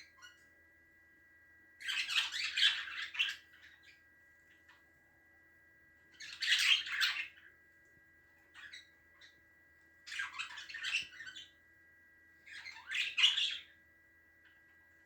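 Budgerigar giving four harsh, rasping fits of about a second each, every three to four seconds, each made of several quick pulses: sounds the owner takes for the bird's cough.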